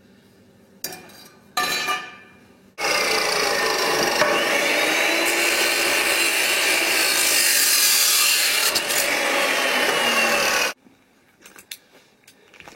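A power cutting tool cutting through a steel tube, switched on about three seconds in and running steadily for about eight seconds before stopping suddenly, with a drifting whine under load. Two metal knocks come before it starts.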